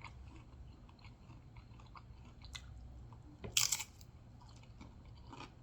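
Close-mic eating of nachos with Doritos chips: soft chewing with small crackles, and one loud crunch of a chip about three and a half seconds in.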